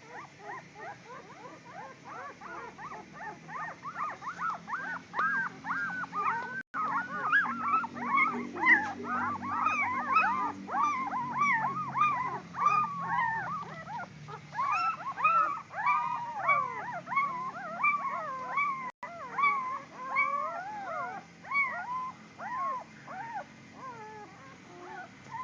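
A litter of puppies whining and yelping together: many short, high cries that rise and fall, overlapping one another, growing louder after the first few seconds.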